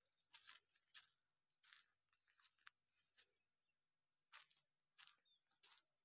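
Faint footsteps crunching on gravelly dirt: irregular steps, a few a second at times, with pauses between.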